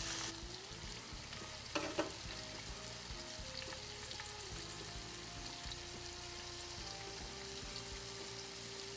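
Chicken thighs sizzling as they sear skin-side down in hot oil in a cast-iron Dutch oven over coals. Two sharp clicks close together about two seconds in.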